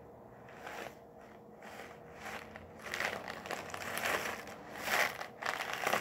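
Homemade rainstick shaker made of two cardboard toilet-paper tubes taped end to end, slowly tilted from side to side so the filling inside slides along the tube with a soft rushing patter like heavy rain. It stays faint at first and then grows, swelling about once a second in the second half.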